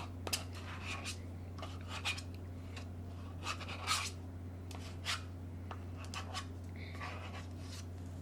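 A spoon scraping and tapping in a plastic yogurt parfait cup, a short scrape every second or so, over a steady low hum.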